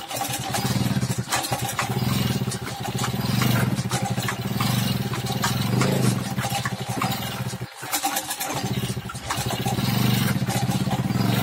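Peugeot 103 moped's 50cc two-stroke single engine being turned over by pedaling. It chugs in surges, with a short break about eight seconds in, and does not start.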